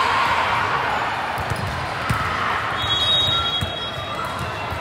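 Indoor volleyball game sounds in a gym: a steady crowd murmur with several dull thumps of the ball and a short high squeak about three seconds in.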